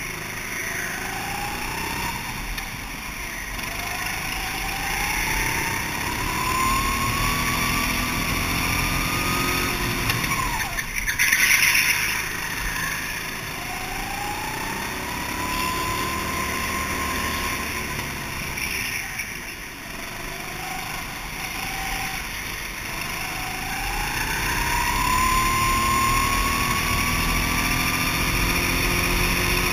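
Go-kart engine heard from the driver's seat, rising in pitch as it accelerates along the straights and falling back for the corners, three times over. About eleven seconds in, a short loud rushing noise rises above it.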